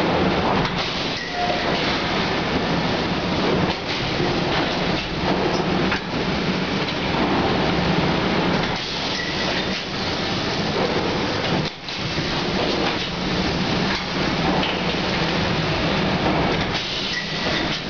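Rotary high-frequency creasing and cutting machine running: a loud, dense, steady noise with a low hum underneath, dipping briefly a few times.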